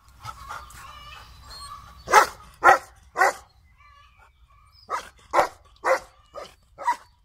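Golden retrievers barking in two runs: three loud barks from about two seconds in, then five more from about five seconds in. High, wavering whining is heard during the first two seconds, before the barks.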